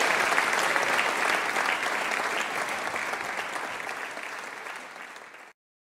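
Concert audience applauding, fading gradually over the last few seconds and then cutting off suddenly near the end.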